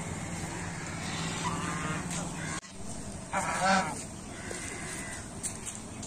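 White domestic geese honking: a short honk about a second and a half in, then a louder, longer honk a little after the middle.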